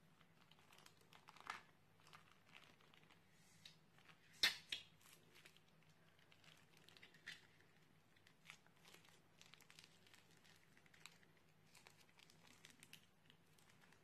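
Plastic piping bag crinkling faintly as a hand squeezes slime out of it, with scattered soft crackles and one sharper crackle about four and a half seconds in.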